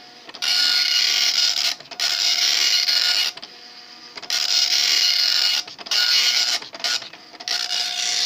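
Star LC-10 9-pin dot-matrix printer printing its built-in test page: a loud rasping buzz as the print head sweeps across each line, lasting about a second or more per pass. Short pauses between the passes come as the line feeds and the head turns back, about six passes in all.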